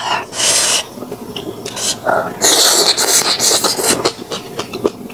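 Eating sounds: small mouth clicks and chewing, with two longer hissing bursts, a short one right at the start and a longer one of over a second about two and a half seconds in.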